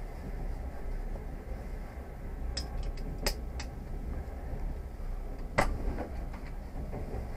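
Passenger train running, heard from inside: a steady low rumble with a few sharp clicks around the middle, the loudest a little after five seconds in.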